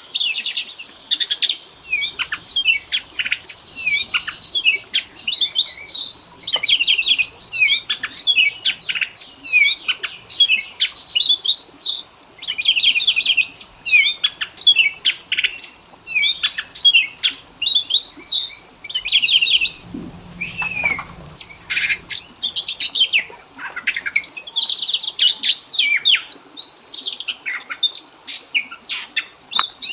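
Oriental magpie-robin singing a fast, continuous, varied song of chirps, whistled notes and rapid trills.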